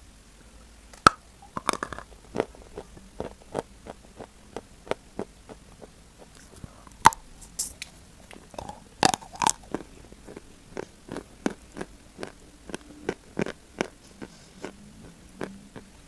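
A person biting and chewing chalk close up: a steady run of sharp, dry crunches about two a second, with a few louder bites about a second in, around seven seconds and twice around nine seconds.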